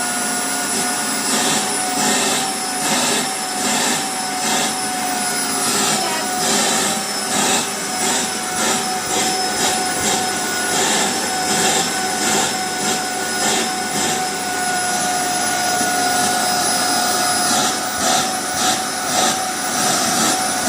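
Vacuum cleaner running with a steady whine, its high hiss swelling and fading about twice a second.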